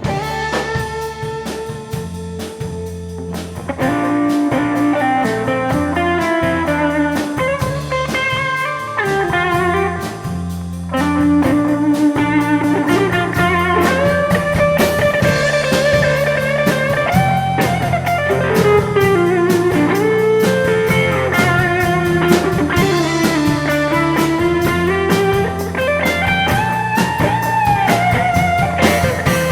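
A band playing an instrumental break: a lead guitar melody with sliding, bending notes over bass and a drum kit. The band gets louder about four seconds in and again near eleven seconds.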